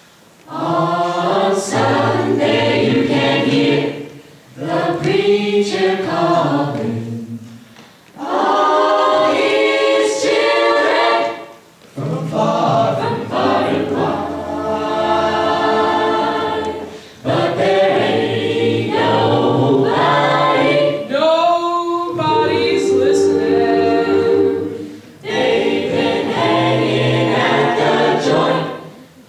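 Mixed-voice jazz choir singing a cappella into handheld microphones, in close-harmony chords over a low bass line. The chords come in about seven phrases, each a few seconds long, with short breaks between them.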